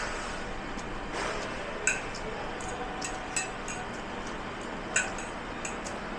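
Dishes and glassware clinking against each other a few times in sharp, ringing knocks over a steady background hiss.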